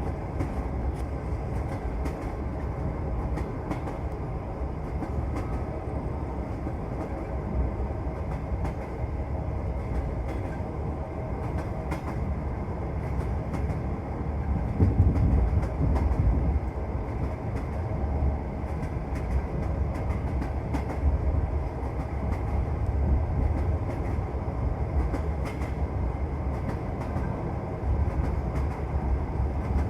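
Passenger train carriage running on the rails, heard from inside the car: a steady low rumble of the wheels with frequent light clicks, and a louder surge about halfway through.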